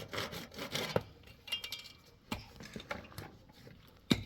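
Scattered light knocks and clinks of objects being handled, with one sharp knock near the end.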